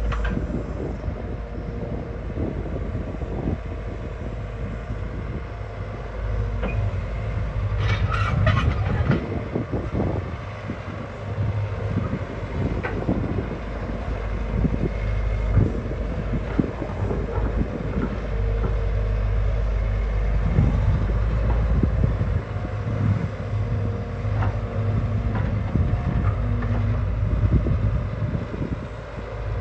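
Diesel engine of a Hyundai 220LC hydraulic excavator running steadily, its low drone swelling at times as it works harder, with scattered clanks and knocks, a cluster of them about eight seconds in.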